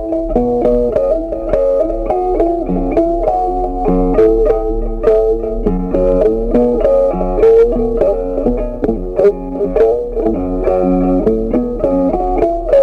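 Background music: an instrumental of quick plucked-string notes over a lower line, playing steadily.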